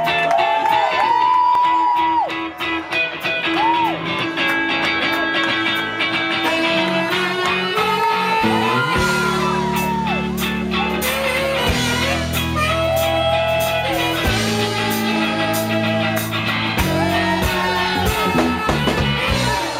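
Live band playing the song's instrumental intro: guitar lines with bent, gliding notes, joined by a heavy bass line about nine seconds in.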